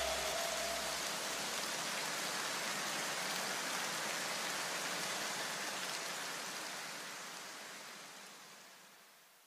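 A steady, even hiss like rain or white noise in the soundtrack. The last low notes of the electronic music die away under it in the first two seconds, and the hiss fades smoothly to silence near the end.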